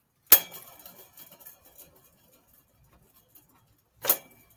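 Two sharp metal clanks about four seconds apart, each with a brief ring: a metal tool striking bicycle crank parts. The first clank is followed by a second or so of light rattling.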